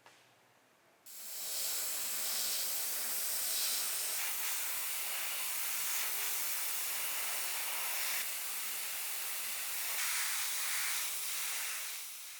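A pressurised spray hissing steadily; it starts suddenly about a second in and cuts off sharply at the end.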